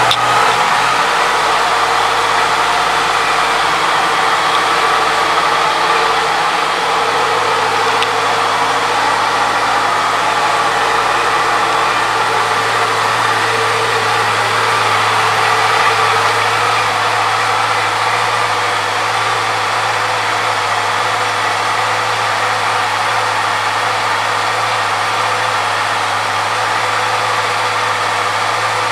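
Honda CBR650F's inline-four engine idling steadily.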